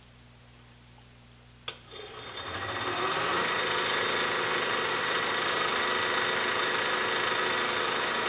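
Belt-driven Swan air compressor pump and its 3 hp electric motor switching on with a click a little under two seconds in, coming up to speed over about a second, then running steadily.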